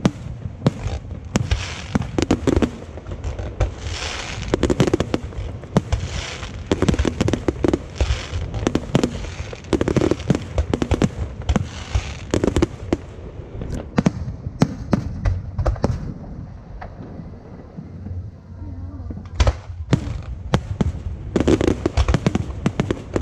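Fireworks going off in quick succession, many sharp bangs and crackles close together. The barrage thins to a lull about two-thirds of the way through, then picks up again near the end.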